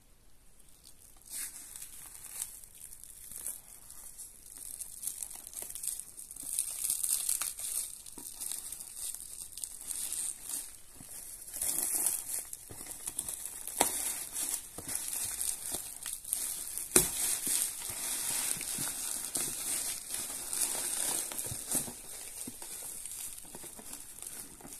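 Black plastic courier bag crinkling and rustling as it is pulled off a cardboard box, with irregular sharp crackles.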